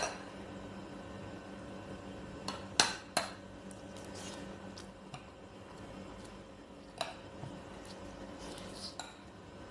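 Spoon or fork clinking and scraping against a plate while eating, a handful of scattered clinks with the sharpest just under three seconds in, over a faint steady hum.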